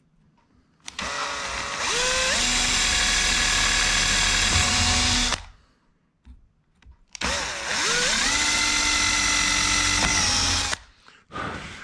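Power drill with a small bit boring two screw pilot holes into the MDF edge of a door, one after the other. Each time the motor whine rises as the drill spins up, holds steady for a few seconds, then stops.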